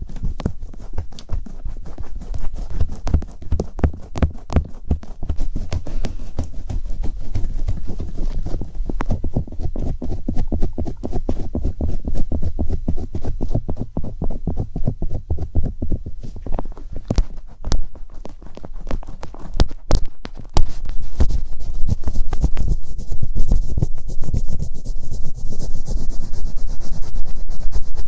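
Close-miked ASMR trigger sounds: fast, dense tapping and scratching right at the microphone, growing louder about two-thirds of the way through.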